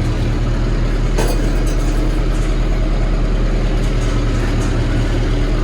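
Steady low mechanical drone of a motor or engine running, with a single short click a little over a second in.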